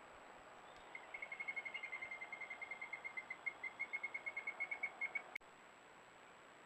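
A bird calling in a rapid trill of clear, evenly repeated notes at about eight a second, held for about four seconds and then cut off abruptly.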